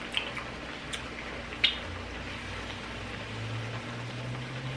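Mushrooms and vegetables frying in oil in a pan, a faint even sizzle with a few sharp clicks in the first two seconds. A low hum comes in about two seconds in and slowly rises in pitch.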